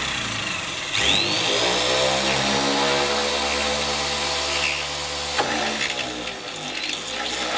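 Electric drill spinning up about a second in and running steadily as its bit drills a hole through a carbon fibre door card panel.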